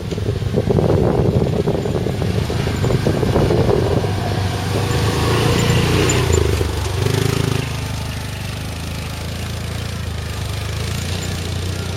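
Yamaha Rhino side-by-side's engine running under load over rough ground, with knocks and rattles through the first half. About seven seconds in it eases off to a steadier, lower note.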